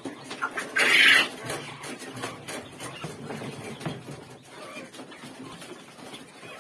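Young quails in wire cages being caught and handled: bird calls and scuffling among light clicks and rattles of the cage, with a short loud burst of noise about a second in.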